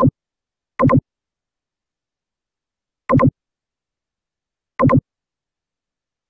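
Four short electronic blips, each about a quarter second long, unevenly spaced with dead silence between: a screen recording's mouse-click sound effect.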